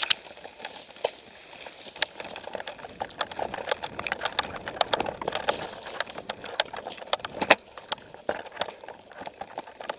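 Irregular sharp clicks and snaps of airsoft guns firing single shots during a skirmish, with the loudest crack about seven and a half seconds in, over a rustling noise of movement in the middle.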